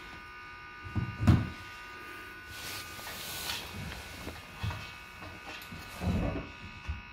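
Wooden stretcher bars knocking and shifting against a wooden floor as a canvas frame is handled, the two loudest knocks coming about a second in and more near the end, with a brief scrape in the middle. Throughout, a steady high electrical whine.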